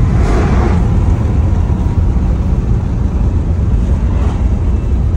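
Road noise inside a moving car's cabin: a steady low rumble, with a brief rustle right at the start.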